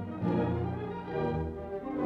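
Orchestral music playing held notes that change every half second or so.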